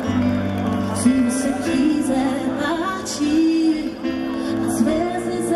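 Live band music with a woman singing long, sliding notes over it, with a steady low bass line and a few light cymbal strokes.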